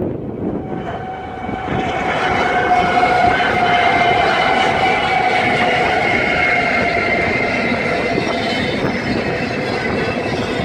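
BNSF double-stack intermodal freight train passing close by. The rumble and wheel noise swell over the first few seconds as the locomotives arrive, and the loaded well cars then roll past steadily. A steady high whine runs over the wheel noise, drifting slightly lower in pitch.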